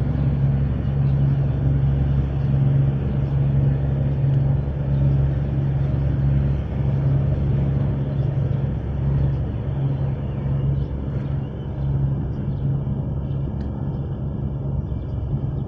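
Low, steady engine drone of a passing cargo ship, a throbbing hum over a rumble, easing slightly near the end as the ship draws away.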